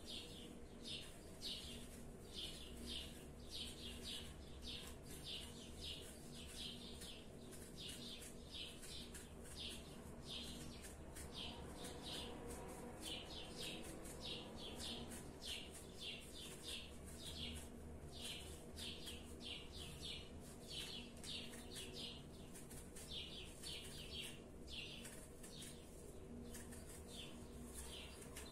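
A bird chirping over and over, short sharp chirps at about two a second, over a faint steady low hum.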